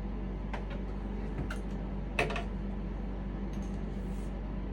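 A few light clicks and taps of small plumbing parts being handled and fitted, the loudest about two seconds in, over a steady low hum.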